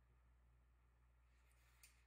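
Near silence: room tone with a faint steady low hum, and two faint ticks near the end.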